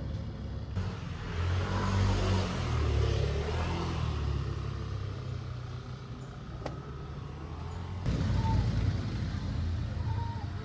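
Road vehicle engine running with road noise. Its level swells about two seconds in, and again with a sudden change about eight seconds in.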